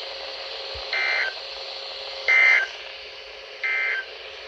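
Three short SAME digital data bursts, the end-of-message code of an Emergency Alert System / NOAA Weather Radio tornado watch, each a buzzy two-tone warble about a third of a second long, about a second apart, over radio hiss.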